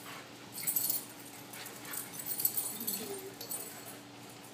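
Boxer and German Shepherd puppies play-fighting on a polished concrete floor: scuffling and clicking of paws and claws, with a brief dog vocalisation about three seconds in.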